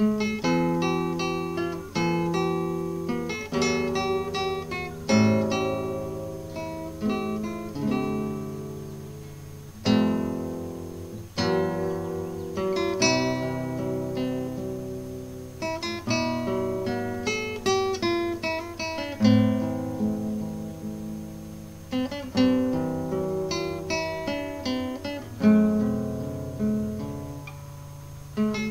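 Background acoustic guitar music: plucked and strummed chords, each one struck sharply and left to ring out and fade.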